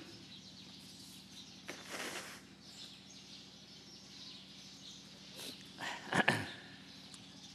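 A man sniffing and wiping his nose with a tissue close to a microphone, over a faint steady hum; about six seconds in there is a short, louder noise near the microphone.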